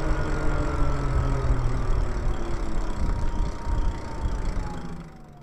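Lyric Graffiti electric bike's motor whining over low wind and road rumble, its pitch falling slowly and steadily as the bike slows. The sound fades near the end.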